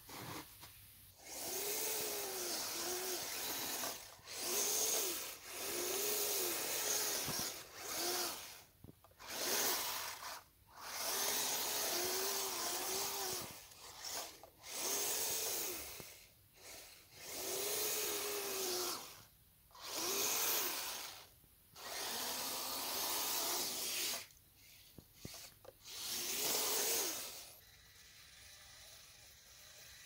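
Electric drive motors and geared tracks of a radio-controlled snowcat running in about ten bursts of one to three seconds with short pauses between them, the whine rising and falling in pitch as the model speeds up and slows.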